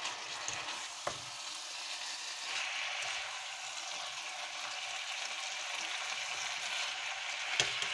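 Chicken, vegetables and boiled spaghetti sizzling in a hot frying pan while being stirred and tossed with a slotted spatula. The sizzle steadies and gets fuller a couple of seconds in. There is a sharp knock of the spatula against the pan about a second in and a louder one near the end.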